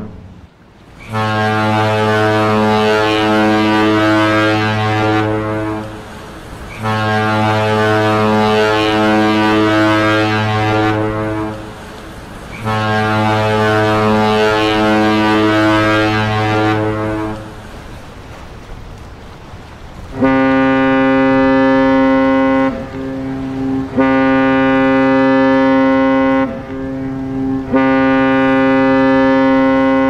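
Two different cruise ship horns, each sounding three long blasts. First a deep horn gives three blasts of about four seconds each. After a short pause a slightly higher horn gives three blasts of about two and a half seconds each.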